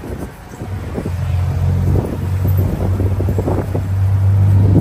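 Tuk tuk engine running, a steady low hum that grows louder about a second in, with wind buffeting the microphone.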